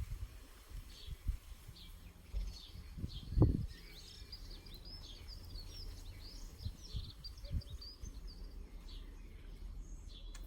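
Small garden birds chirping and twittering in quick, overlapping calls, busiest in the middle of the stretch, over a low rumble. Several low thumps break in, the loudest about three and a half seconds in.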